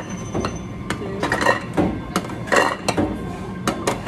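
Ceramic sushi plates clinking against each other and knocking into a table-side plate-return slot as they are fed in one by one, with a string of sharp clinks and knocks about half a second apart.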